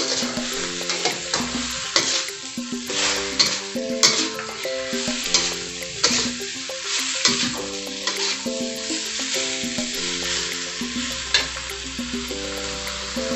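Greens and sliced sausage sizzling in a stainless-steel wok while a metal spatula stirs them and scrapes and clacks against the pan many times. Background music plays a melody over it.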